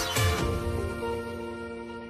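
Background music: a passage with a beat ends about half a second in, and a held chord rings on.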